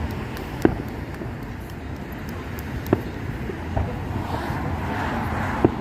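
Fireworks going off in the distance: a few sharp single bangs a couple of seconds apart over a steady outdoor rumble like traffic.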